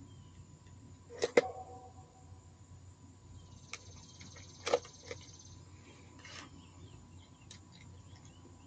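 A few sharp clicks and taps of small metal hardware and tools being handled. Two come close together about a second in, then a few more around the middle, with a faint hiss and rustle between them.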